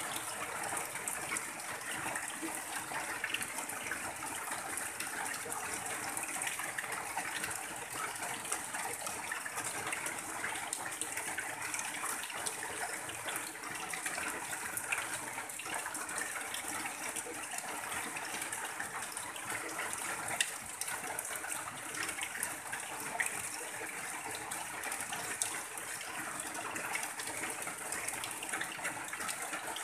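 Heavy rain falling on a tin roof and pouring off its edge in a stream, a steady even hiss with scattered sharp drip ticks.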